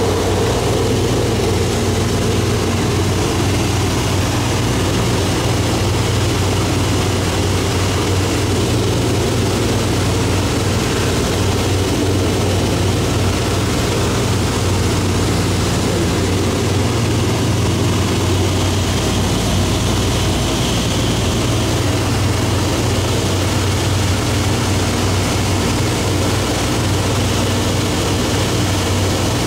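Propeller-driven light aircraft engine droning steadily in cruise flight, heard from inside the cockpit, with a constant low hum from the engine and propeller under wind and airframe noise.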